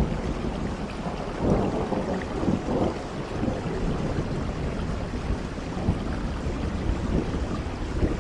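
Steady rain falling, with a low rumble underneath that swells a few times in the first three seconds.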